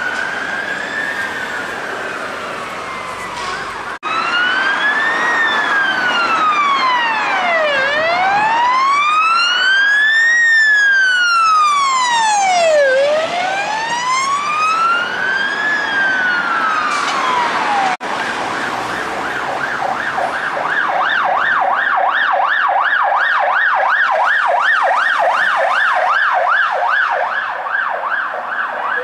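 Fire engine siren on a wail, sweeping slowly up and down about once every five seconds. About twenty seconds in, an emergency vehicle siren switches to a fast yelp of about four cycles a second.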